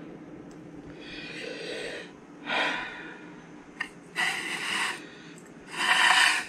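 A person breathing out audibly four times, close to the microphone. The last two breaths are the loudest, with a small click between them.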